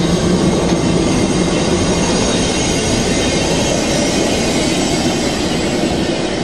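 GWR 6800 'Grange' class 4-6-0 steam locomotive running slowly past at close range: a loud, steady rumble and hiss of wheels and steam, with thin high squealing tones.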